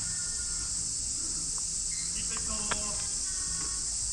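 A steady high-pitched insect chorus, with faint distant voices and a single sharp click about two and a half seconds in.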